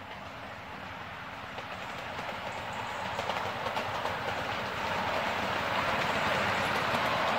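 Miniature railway train on 7¼-inch gauge track running towards the microphone, its wheels clattering on the rails and the sound growing steadily louder.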